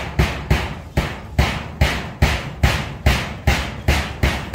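A steady series of heavy thuds, about two and a half a second, each followed by a short ringing decay.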